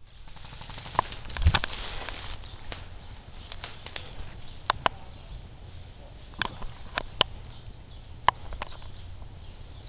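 Footsteps and rustling through dry leaves and undergrowth while running in woodland, loudest in the first couple of seconds, followed by scattered sharp clicks and snaps.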